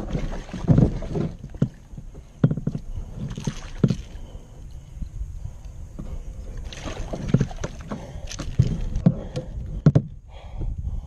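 Irregular knocks and bumps on a kayak, with water splashing and sloshing as hooked largemouth bass are brought alongside and lifted aboard, over a low wind rumble on the microphone.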